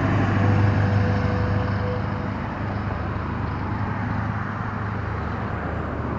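Small electric motor and gears of a toy RC ATV running steadily with a low hum, a brief whine early on, fading slightly toward the end.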